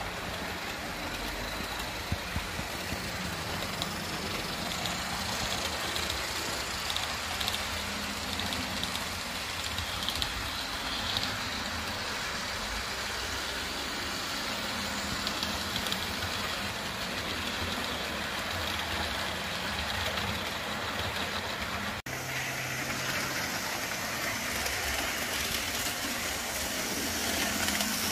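HO-scale DC model trains running on the layout: a steady whir of small electric motors and the noise of wheels rolling over the rails, with light ticks. The sound cuts out briefly once, about three-quarters of the way through.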